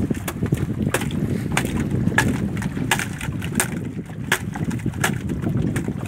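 A series of sharp knocks on the boat, the strongest about every two-thirds of a second with fainter taps between, as a freshly landed fish is handled aboard a small fishing boat. Under them runs a steady rumble of wind on the microphone and sea.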